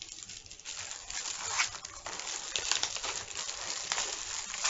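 Plastic mailer packaging crinkling and rustling continuously as it is pulled open.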